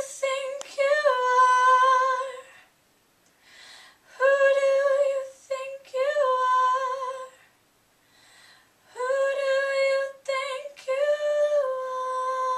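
A teenage girl's unaccompanied solo voice singing three wordless phrases, each a long held note with a brief lift in pitch partway through, separated by short silences.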